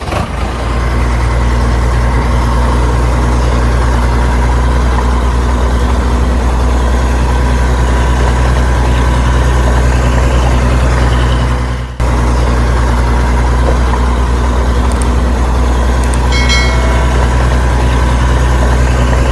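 A large engine idling steadily with a deep, even hum, broken by a short dropout about twelve seconds in.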